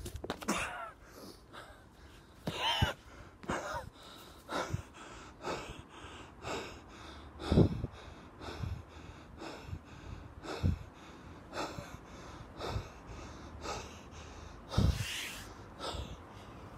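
A person breathing hard in a series of sharp gasps and snorts, about one a second, some with the voice sounding in them; the loudest comes near the middle.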